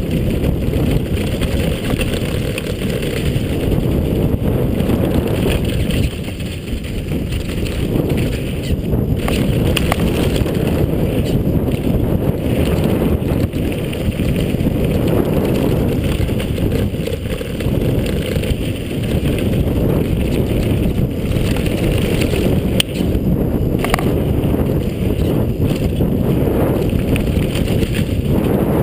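Specialized Demo 8 downhill mountain bike ripping down a dirt-and-gravel trail, heard through a handlebar-mounted GoPro: steady wind buffeting on the microphone mixed with tyre noise on loose gravel and the bike rattling over the bumps, with a few sharp clicks.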